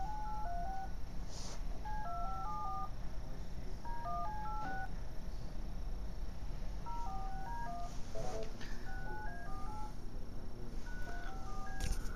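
Runs of short electronic beeps at shifting pitches, like quick dialing-tone melodies, each run about a second long and coming every two to three seconds, over a steady low hum.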